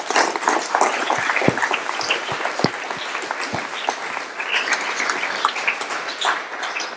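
Audience applauding in a lecture hall, a steady patter of many hands clapping that dies away near the end.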